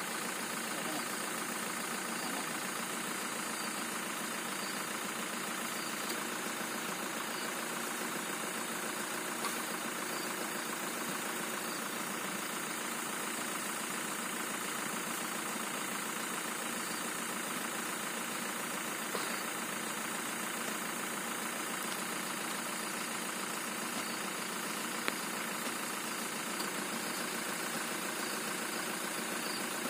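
A vehicle engine idling steadily, with a few faint clicks scattered through it.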